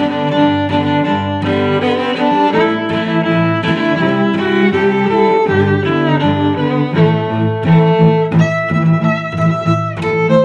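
Instrumental background music with held notes that change every second or so.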